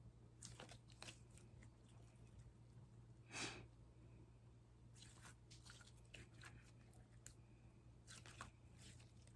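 Slime being worked by hand, giving faint, scattered crackles and squishes, with a louder crackle about three and a half seconds in.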